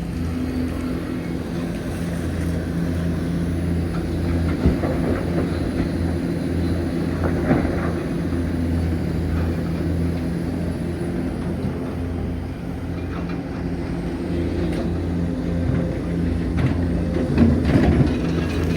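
Hitachi Zaxis 490LCH excavator's diesel engine running steadily, with a few knocks and clatters, the loudest near the end.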